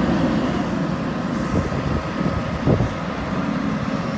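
JCB 3DX Super backhoe loader's diesel engine running steadily as the machine drives slowly over rough ground, with a short sharp crack about two and a half seconds in.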